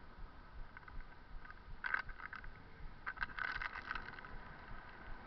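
A bicycle being ridden, rattling and clicking in two short bursts, one about two seconds in and a longer one about three seconds in.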